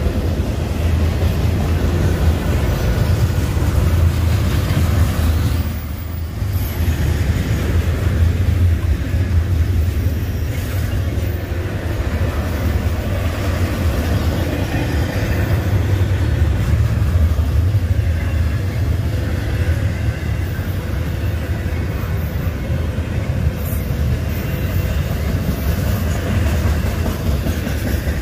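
Union Pacific double-stack intermodal freight train passing at speed, its wheels running steadily over the rails, with a brief dip in level about six seconds in.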